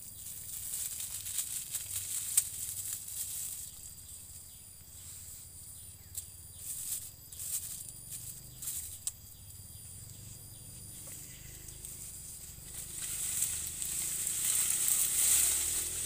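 Clear plastic bag crinkling and crackling in short irregular clicks as it is handled and bound with a rubber band around a cut cardamom stem, over a steady high insect drone. Near the end, a louder rustle of leaves and stalks.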